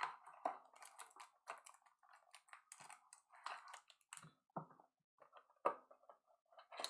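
Faint, irregular clicks, scratches and crinkles of fingers picking at sealed trading-card box packaging.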